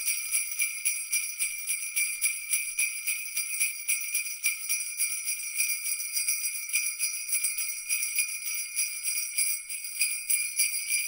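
Sleigh bells jingling, shaken in a steady, even rhythm with a bright high ring.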